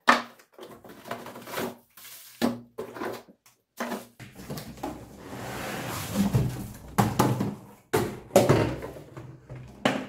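Unboxing handling noise: hard plastic vacuum accessories knocked down onto a wooden table, a string of clunks, then a longer scraping rustle of cardboard about halfway through as the carton is slid up off the vacuum cleaner.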